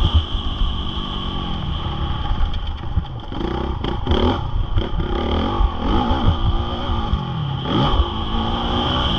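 Honda CRF450R single-cylinder four-stroke motocross bike being ridden hard, its engine revving up and dropping back over and over as the throttle is opened and closed, over a heavy low rumble.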